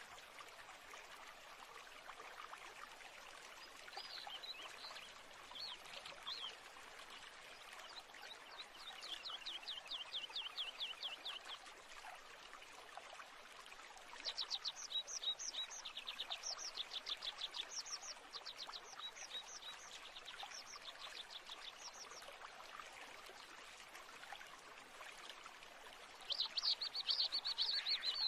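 Steady rush of a flowing stream with birds calling over it: a run of rapid trilled notes, then a series of short high chirps, and a louder dense trill near the end.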